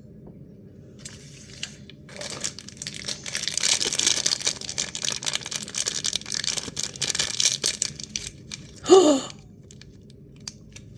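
Plastic blind-pack wrapping being torn open and crinkled by hand, a run of crackling lasting several seconds before a brief vocal sound near the end.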